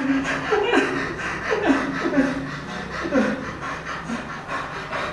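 A man's voice making short wordless cries that fall in pitch, about one a second, tailing off toward the end.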